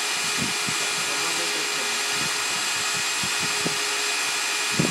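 Electric diamond core drill running steadily under load, boring a core out of concrete, with a constant high whine over the motor's hiss.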